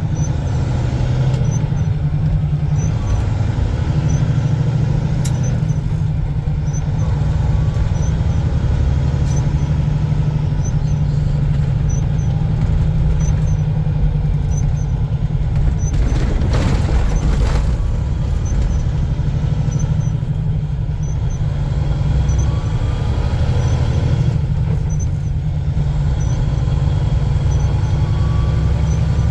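Steady low engine and road drone of a semi truck being driven, heard from the cab. A faint, regular high tick runs through it, and there is a brief rush of noise a little past halfway.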